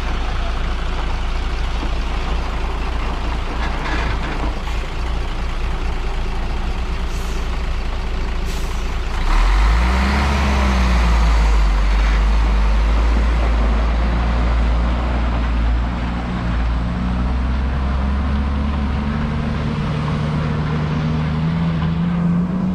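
Heavy dump truck's diesel engine running close by. About nine and a half seconds in it revs hard and gets louder as the truck pulls away up a gravel hairpin. The engine note climbs again near the end.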